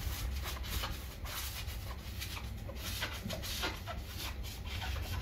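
Damp sponge scrubbing across ceramic wall tiles and dried grout joints, in quick rubbing strokes about two or three a second, wiping off the excess grout.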